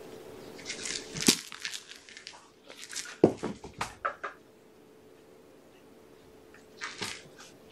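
Bursts of rustling, scratching and crinkling as cats and kittens play on a rug around a cardboard scratcher and toys, in three clusters: about a second in, around three to four seconds in, and near the end.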